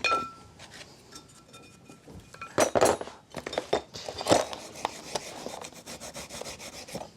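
Garryflex abrasive block scrubbing the cast-iron body of a vintage No. 3 hand plane in uneven rubbing strokes, with louder scrapes about two and a half and four seconds in.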